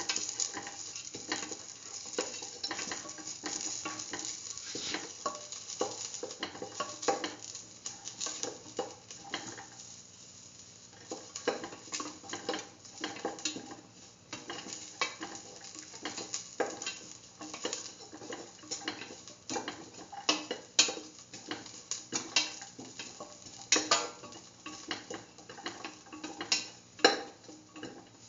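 Onion, garlic and shallot pieces sizzling in oil in a stainless steel pan while being stirred, with a utensil knocking and scraping on the metal in frequent sharp clicks. The sizzle thins out about a third of the way in, and the knocks stand out more after that.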